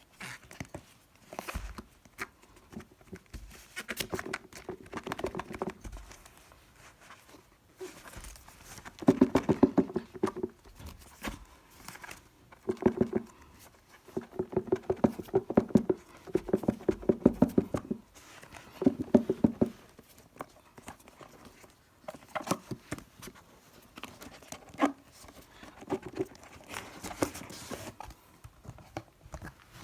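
Hands handling packaging: scratching, rustling and tapping in bouts of a few seconds with short pauses between.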